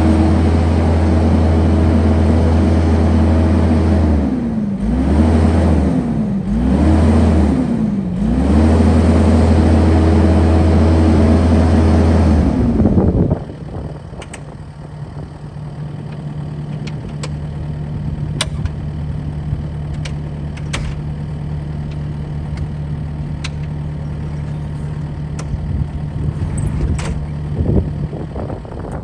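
Kubota SVL75-2 skid steer's diesel engine running at high revs, its pitch sagging and recovering three times. About 13 seconds in it drops to a lower, steady idle, with scattered light clicks and knocks from the machine.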